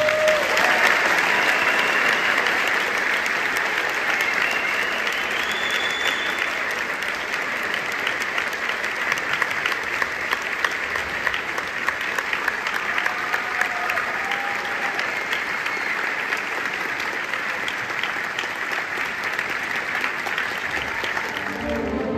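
Audience applauding steadily, with a few cheers rising over the clapping.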